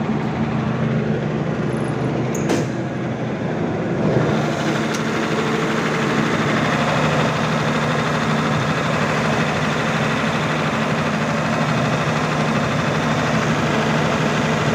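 Diesel generator set running steadily at constant speed, described as smooth, with an even low hum. A brief sharp click about two and a half seconds in.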